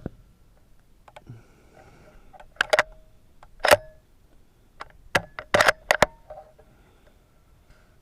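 Bolt of a bolt-action rifle being worked after a shot: sharp metallic clicks and clacks in three clusters over about three and a half seconds, starting a couple of seconds in, as the spent case is ejected and a fresh round chambered.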